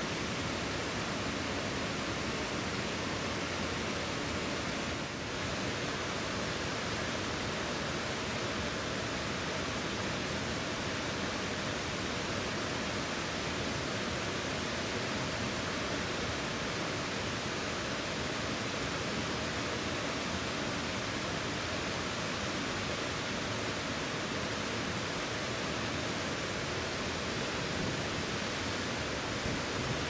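Steady rushing of flowing stream water.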